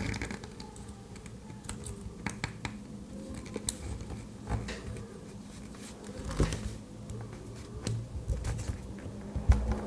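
Irregular small clicks and taps of pliers working on a plastic zip tie, squeezing its locking housing to free the strap.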